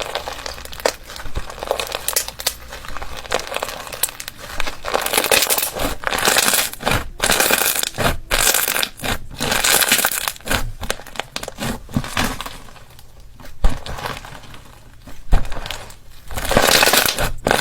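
Slime being squeezed and pressed by hand, making irregular crackling, squishing noises with sharp clicks.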